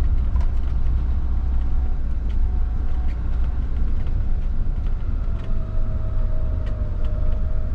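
Fiat Ducato-based motorhome's diesel engine and tyres giving a steady low rumble as it drives slowly, with faint light ticks and rattles over it.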